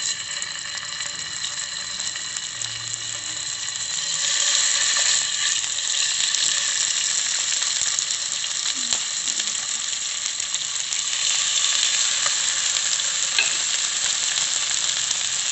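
Salmon pieces sizzling as they fry in a little hot oil in a non-stick pan, the sizzle growing louder about four seconds in as more pieces go in, with a few light clicks of the tongs against the pan.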